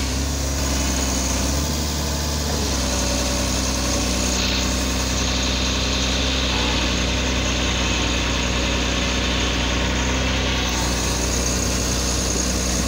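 Tata Hitachi EX110 crawler excavator's diesel engine running steadily at low revs while the machine sits stuck in deep mud.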